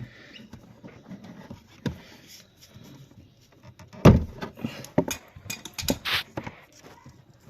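Hand tools and cable being handled during wiring work: scattered clicks and knocks, the loudest about four seconds in, then a quick run of them a second later.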